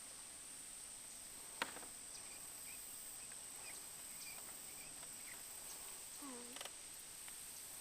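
Quiet outdoor ambience: a steady high-pitched hum with faint short chirps, a single sharp click about a second and a half in, and a brief falling tone near the end.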